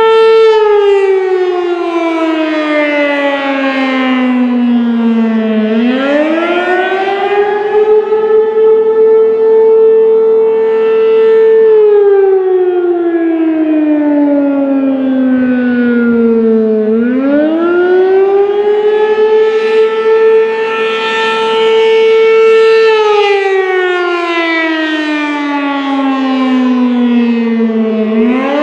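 American Signal RM-127 rotating mechanical outdoor warning siren sounding a wail on a scheduled test. Its single loud tone coasts down to about half its pitch over five seconds or so, winds back up within about two seconds, holds, and falls again, repeating about every eleven seconds, with the loudness swelling and fading.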